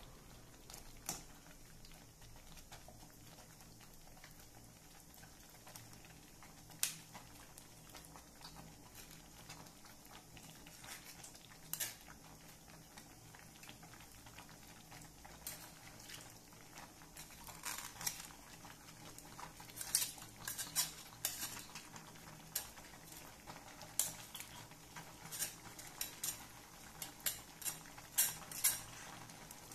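A metal spoon scraping and tapping boiled penne out of a wire-mesh strainer into a metal pan of white sauce: faint clinks of metal on metal, scattered at first and coming more often in the second half.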